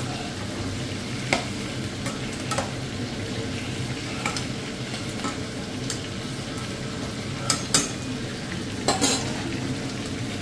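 Chunks of meat and onion sizzling in a nonstick frying pan as they are stirred with a slotted spatula, a steady frying hiss broken by a handful of sharp knocks of the spatula against the pan.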